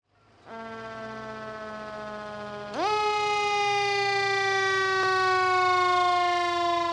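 Fire engine siren on a 2017 Spartan pumper sounding a steady low tone, then jumping sharply up in pitch about two and a half seconds in, getting louder, and sliding slowly down.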